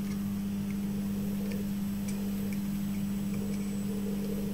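A steady low hum, with a few faint light ticks as multimeter probes are held against a circuit board.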